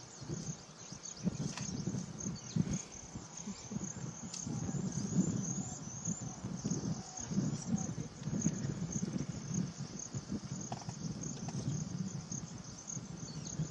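Insect chorus trilling steadily high, with an uneven low rumble underneath that swells and fades.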